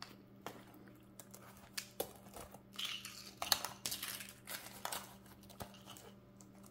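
Rustles, light knocks and scrapes of small items being handled and packed into a handbag, busiest in the middle.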